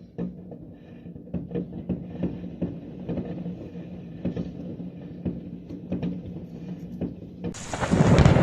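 Muffled knocks and thumps over a low steady hum, then near the end a loud rush of storm noise cuts in suddenly.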